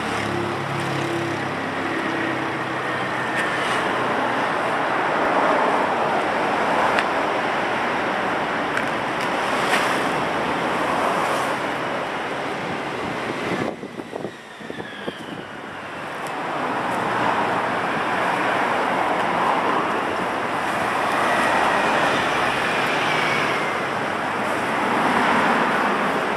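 City street traffic noise: cars running along the road in a steady wash of sound, with wind on the microphone. The sound drops briefly about halfway through.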